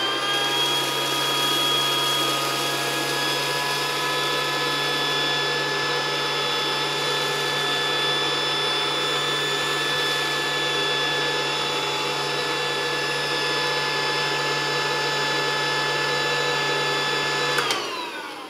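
Battery-powered hose-suction motor of a Casdon toy Dyson DC14 vacuum cleaner running while it sucks up polystyrene balls. It whirs up to speed at the start, holds a steady high whine, then winds down near the end.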